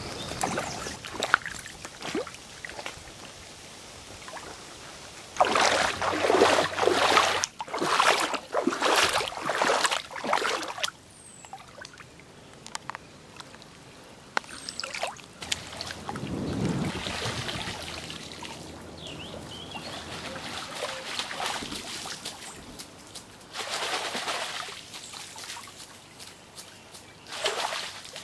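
Shallow stream water splashing and sloshing as a person wades and moves flowers about in it, in irregular bursts, the loudest from about five to eleven seconds in.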